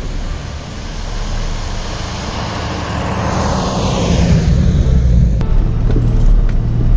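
A 1997 Jeep Wrangler TJ drives through snow toward the listener and passes close by. Its engine and tyres swell to a peak and then fall away, about three to four seconds in. After a sudden cut, a Jeep's engine is heard from a hood-mounted camera as a steady low hum.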